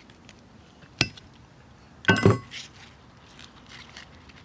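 A sharp knock about a second in, then a louder clinking clatter with a brief ring about two seconds in, followed by a few faint ticks: a metal fillet knife knocking against a hard surface.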